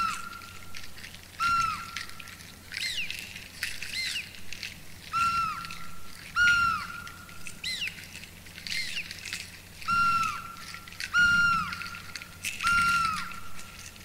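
Repeated bird-like whistled calls, about one every second or so. Each is a held clear note that drops in pitch at its end, and a few higher calls slide downward.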